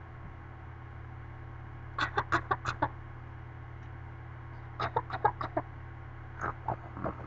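A baby's fake coughs: three quick runs of short, sharp cough-like bursts, several to a run, about two seconds in, about five seconds in and near the end.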